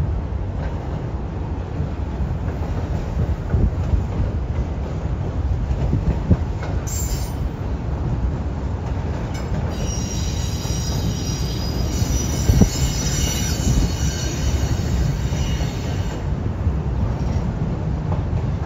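Double-stack intermodal container train rolling over a steel truss bridge: a steady low rumble of wheels and cars with a couple of sharp knocks. A high-pitched squeal from the wheels sets in about ten seconds in and fades out some six seconds later.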